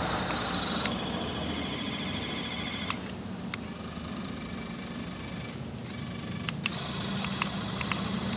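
Small electric gear motors of a homemade remote-control excavator whining. The pitch changes every second or two as motors start and stop, with a few sharp clicks.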